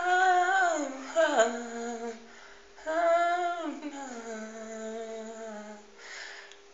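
A man singing unaccompanied without words, drawing out long notes in three phrases that each slide downward at the end, with short pauses between them.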